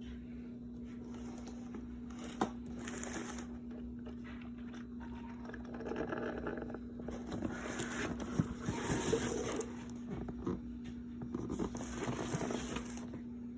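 Instant Solo single-serve coffee maker brewing: a steady hum runs under repeated spells of hissing, crackling sputter as hot water is pushed through the pod, with a few sharp clicks.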